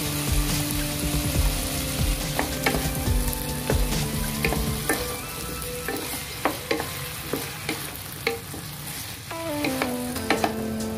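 Chicken feet sizzling in a frying pan as a wooden spatula stirs them through tomato sauce, with sharp knocks and scrapes of the spatula against the pan from about two seconds in.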